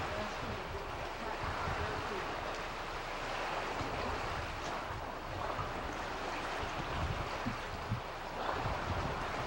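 Wind rumbling in uneven gusts on the microphone over a steady hiss of open sea below.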